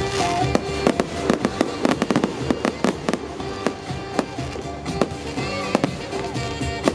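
Fireworks going off in quick succession, a dense run of bangs and cracks that is thickest about a second or two in, with music playing underneath.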